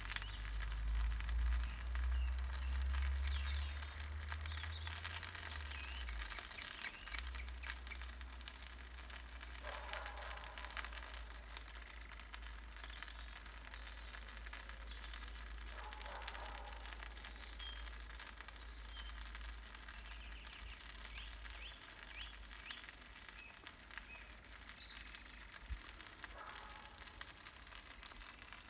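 Bonfire crackling, with scattered small pops throughout. Birds chirp a few times in the first eight seconds, and a low rumble is strongest in the first six seconds.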